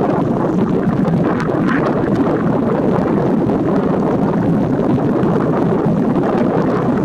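Wind blowing across the camera's microphone: a steady, loud noise.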